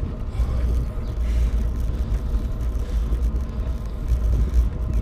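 Wind buffeting the microphone of a camera on a moving bicycle, a steady low rumble with road noise under it.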